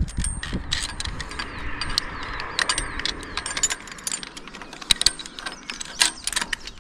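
Irregular metallic clicks and rattles of antenna-element mounting hardware being worked by hand as an element is fitted onto the boom.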